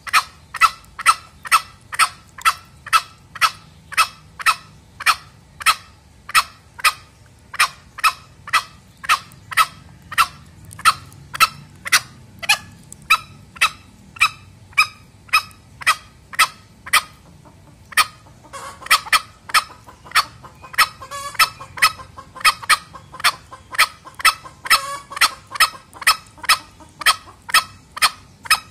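Male green junglefowl giving short, sharp clucking calls in a steady series, about two a second. For several seconds past the middle a denser, rougher layer of sound runs among the calls.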